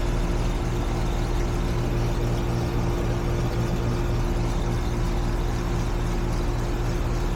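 Central air-conditioning condensing unit running: a steady electrical hum from the compressor with the condenser fan's whir and a higher steady tone above it. The system is running at a head pressure of 558 with 28 degrees subcooling, which the tech reads as an overcharge.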